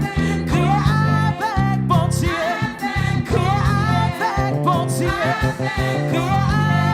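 Gospel praise song: voices singing over a band with a steady bass line.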